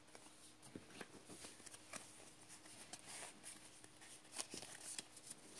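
Faint, scattered soft clicks and rustles of Pokémon trading cards being handled in the hands.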